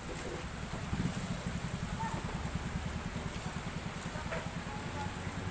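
Steady hiss of heavy rain, with a small motorcycle engine running underneath in a low, even putter; a louder knock about a second in.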